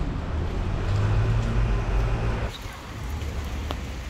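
Traffic noise on a rain-wet city street: a low vehicle rumble under a hiss that drops off abruptly about two and a half seconds in, leaving fainter street noise.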